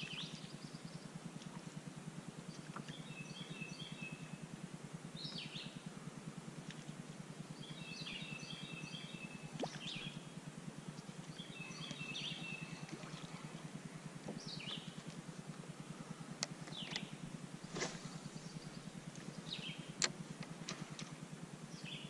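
Songbirds calling, with a short phrase of high chirps repeated about every four seconds and single high, falling notes in between. Underneath runs a steady low hum, and a few sharp clicks come in the last few seconds, the loudest about two seconds before the end.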